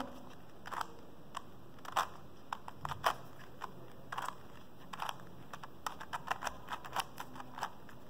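Stickerless plastic 3x3 Rubik's cube being turned by hand, its layers and middle slice giving soft, irregular plastic clicks, a few a second. This is a run of quick turns through the algorithm that swaps the last layer's edges.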